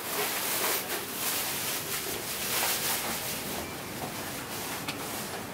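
Steady hiss of noise inside a moving-through train corridor, with light rustling and a few faint knocks.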